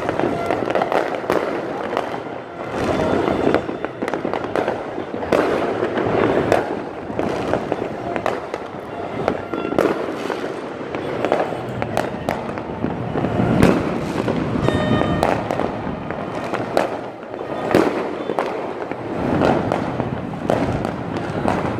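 Aerial fireworks bursting across a city, a dense, unbroken run of overlapping bangs and crackles, some loud and some faint.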